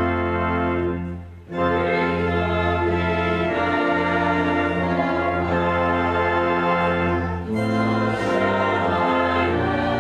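Church organ playing slow, sustained chords, with a brief break between phrases about a second in.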